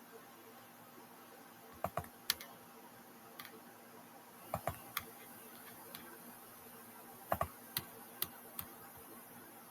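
Computer keyboard keys clicking: about a dozen scattered keystrokes, some in quick pairs, over a faint steady hiss.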